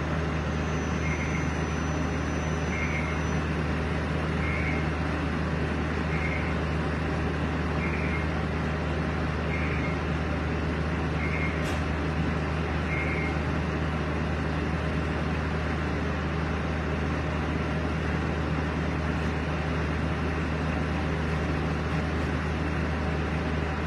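A steady low mechanical hum with an even hiss, like a running engine or motor. Faint short beeps repeat about every one and a half seconds through the first half, and there is a single click about halfway through.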